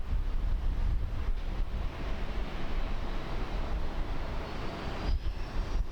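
Jet airliner's engines at takeoff power, a steady broad rumble with wind buffeting the microphone. A faint rising whine comes in about four seconds in.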